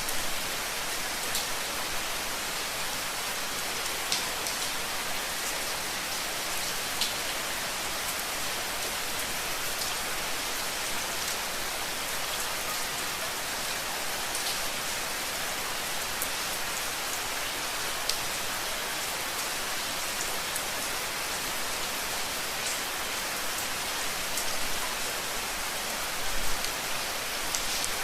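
Steady rain falling and pattering on a surface, an even hiss with scattered sharper drop ticks and a few louder splashes near the end.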